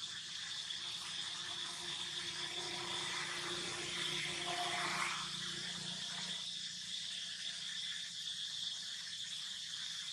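Outdoor daytime ambience: a steady high-pitched drone of calling insects. About five seconds in there is a brief louder rushing noise.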